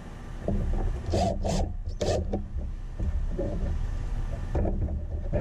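Cordless DeWalt impact driver driving screws into plywood in several short bursts, the loudest about one to two seconds in, with shorter runs later. A steady low rumble lies underneath.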